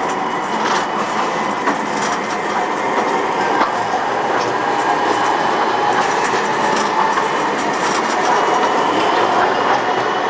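Metre-gauge low-floor tram running past close by, a steady rolling and running noise with frequent sharp clicks from the wheels on the rails and a thin, steady whine over it.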